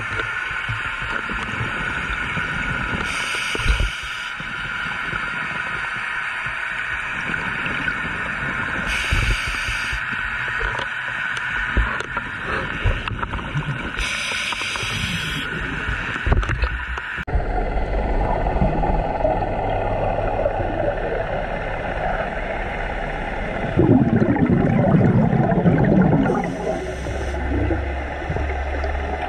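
Scuba diver breathing through a regulator underwater: a short hiss of inhaling four times, several seconds apart, and a louder bubbling rush of exhaled air shortly before the last one, over a steady underwater hum.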